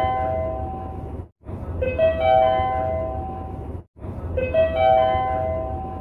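Railway service-information update chime: a short rising arpeggio of four notes, the top note held, repeating about every two and a half seconds. Each repeat is separated by a brief dropout, over a steady low rumble.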